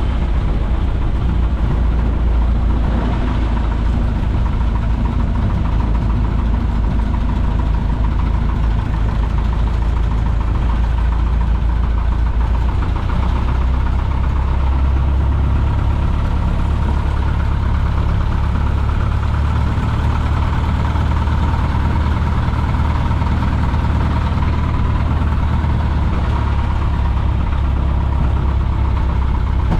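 Piper J-3 Cub's engine and propeller running in flight, a loud, steady drone heard from inside the cockpit.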